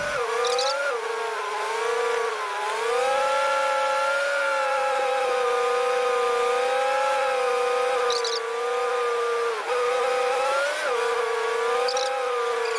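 Semi truck pulling away slowly: a steady pitched whine that dips and climbs again several times as the engine speed changes.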